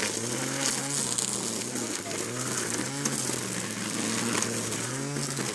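Small petrol engine running, its speed stepping up and down every second or two over a steady hiss, as in yard-clearing tools such as a string trimmer.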